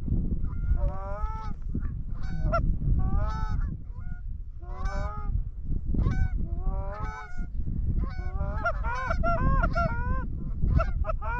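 Canada goose honking: a quick run of two-note honks, thickening into many overlapping calls near the end, over a steady low rumble.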